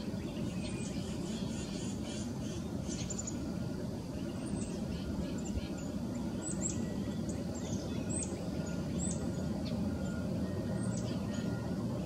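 Birds calling in short, sharp high chirps, scattered irregularly and busiest in the middle, over a steady low rumble.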